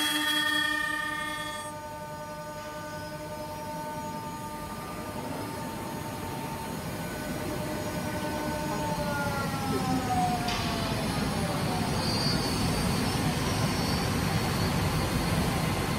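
Four-axis, 16-tool CNC woodworking machine running: its spindle motors give several steady whining tones over a rushing machine noise. Around nine to ten seconds in, the whine falls in pitch as the spindles wind down.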